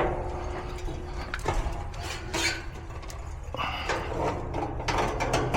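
Clicks, knocks and rustles of a new refrigerant leak detector being taken out of its box and packaging.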